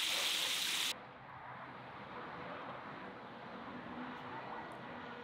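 Pieces of fish deep-frying in hot oil in a kazan, a loud even sizzling hiss that cuts off abruptly about a second in. After that, only a faint steady outdoor background remains.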